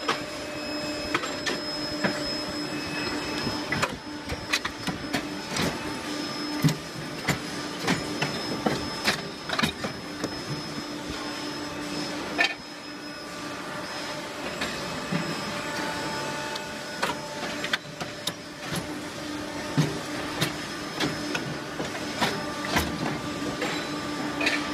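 Automatic chain-making machine running: a steady mechanical hum with frequent, irregular metallic clicks and knocks as links are bent and formed.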